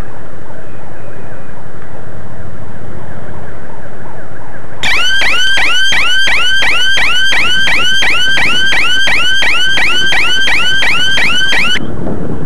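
Electronic siren sounding a fast yelp, about three rising sweeps a second, starting about five seconds in and cutting off suddenly some seven seconds later. Before it, only wind noise on the microphone.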